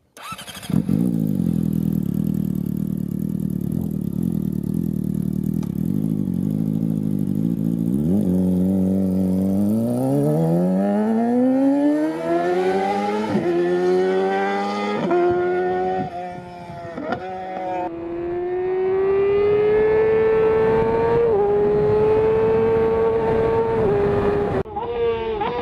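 Yamaha R6 inline-four with a Leo Vince full exhaust (stainless headers, titanium slip-on) running steadily at low revs, then accelerating hard through the gears about eight seconds in, the note climbing and dropping sharply at each of several gear changes before holding high revs.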